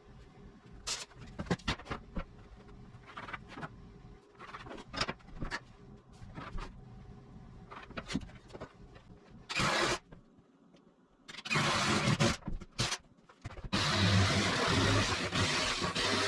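Scattered knocks and clatter of handling, then a motor-driven power tool starting in short bursts and, in the last couple of seconds, running steadily and loudly.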